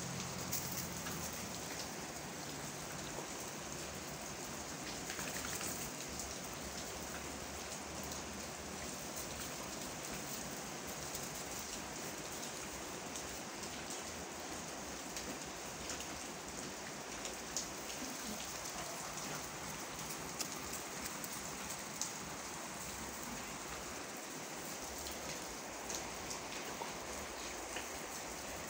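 Steady rain falling, with scattered sharper drip ticks over the even hiss.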